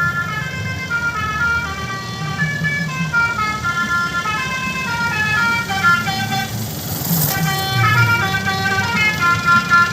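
An odong-odong mini train plays a jingly tune of short stepping notes, like an ice-cream van, over the low running of its engine. There is a brief hiss about seven seconds in.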